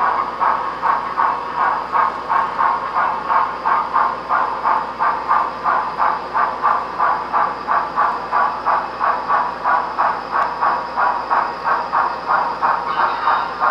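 HO scale Broadway Limited Imports GM&O light Pacific 4-6-2 model steam locomotive, its onboard sound system playing a steady steam chuff, about three chuffs a second, as the engine runs.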